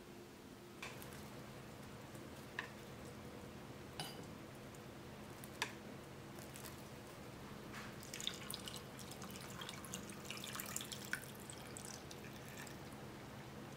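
Faint handling sounds of a glass jar of small pickled plums: a few separate light clicks, some with a short glassy ring, then a spell of small crackling ticks about eight seconds in, over a steady low hum.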